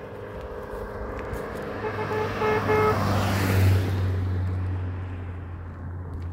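A motor vehicle comes up and passes close, sounding its horn in a quick run of short toots about two to three seconds in. Its engine hum carries on after it goes by.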